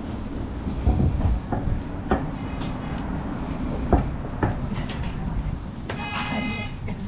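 Hankai Tramway low-floor tram standing at a platform: a steady low rumble from its running equipment, with scattered knocks and clicks. A short, high ringing tone sounds about six seconds in.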